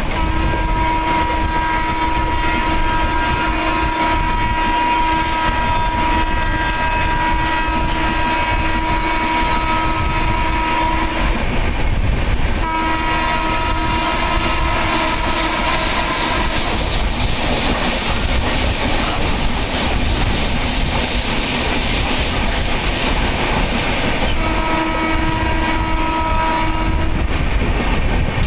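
Train horn sounding one long blast of about eleven seconds, then two shorter blasts. Underneath runs the steady rumble and wheel clatter of a moving express train heard from inside a passenger coach.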